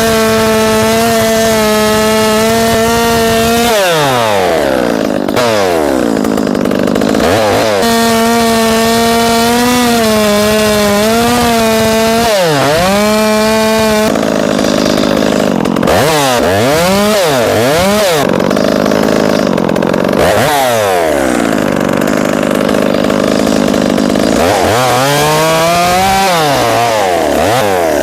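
Two-stroke chainsaw cutting a Humboldt felling notch at full throttle. Its high engine note drops and climbs back several times as the throttle is let off and reopened between cuts.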